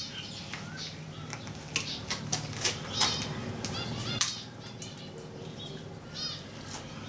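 Hands rustling and clicking plastic wiring covering and cable ties into place on a motorcycle's wiring, a string of irregular small clicks and rustles. A few short bird chirps come through about three and four seconds in and again near the end.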